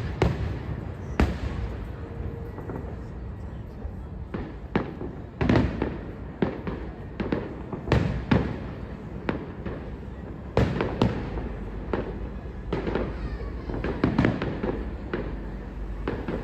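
Public fireworks display: shells bursting in sharp bangs at irregular intervals, one or two a second, some much louder than others, over a steady background rumble.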